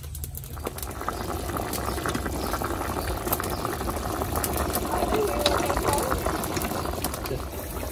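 A pot of Muscovy duck offal in fermented-bean-curd broth boiling hard, a busy run of bubbling and popping that grows louder about half a second in.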